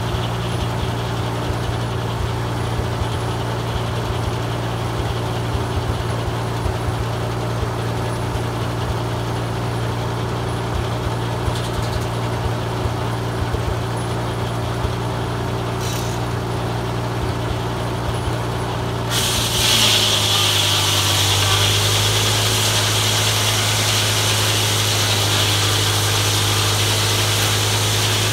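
Farmall M tractor's four-cylinder engine running steadily, driving a Foley Belsaw circular sawmill. About two-thirds of the way in, the saw starts cutting a pine log: the engine note drops under the load and a loud, steady hiss of cutting comes in.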